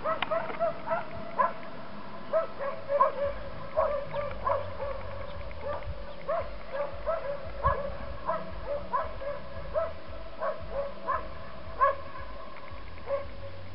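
A dog whining in short, high yips, two or three a second, keeping up a steady run of them.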